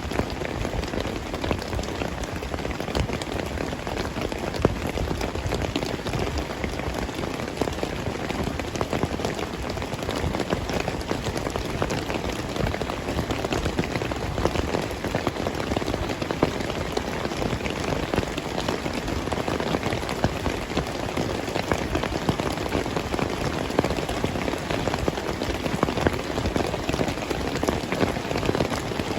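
Heavy rain falling steadily, a dense unbroken patter of drops hitting surfaces.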